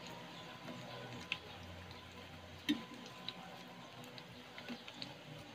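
Metal tongs clicking against a frying pan and food while turning sweet potato balls frying in oil, over a low sizzle of oil. There are several sharp clicks, the loudest about halfway through.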